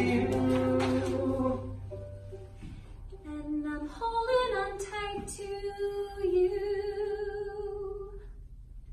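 A small group of men's and women's voices singing a cappella: a loud held chord that drops away after about a second and a half, then softer sung lines that taper into one held note and fade out near the end.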